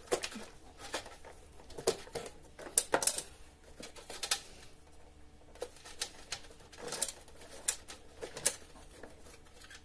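Irregular clicks, knocks and short scrapes of a screwdriver and hands on the plastic fan housing of a kitchen range hood, as the fan motor is fastened down with a self-tapping screw. The loudest knocks come about three seconds in.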